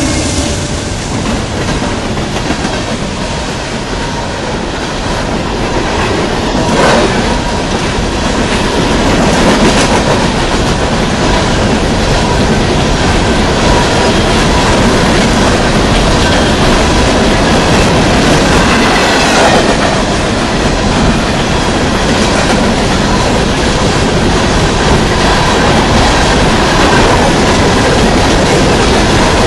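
Coal train passing at close range: diesel freight locomotives go by in the first seconds, then coal hopper cars roll past with a loud, steady rumble and a clatter of wheels over the rail joints. A thin, steady squeal from the wheels runs through much of it.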